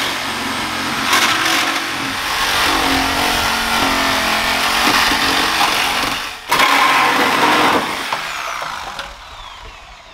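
Corded reciprocating saw (Sawzall) cutting through a car's steel front cross member: a loud, rasping motor-driven blade sawing metal. It breaks off briefly about six seconds in, saws on, then stops near the end.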